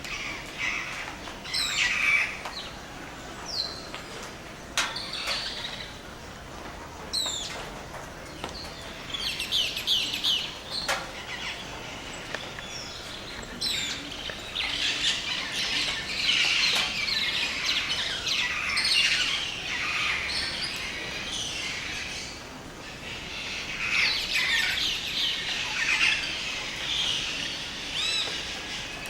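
Dawn chorus of many tropical rainforest birds, chirping and trilling over one another. The calls are scattered at first and grow into a dense, continuous chorus about halfway through.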